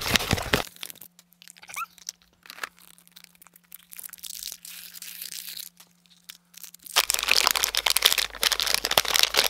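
Foil blind-bag packet crinkling and tearing as it is crumpled open, loudest over the last two and a half seconds. Before that, quiet sparse clicks of small plastic toy pieces being handled.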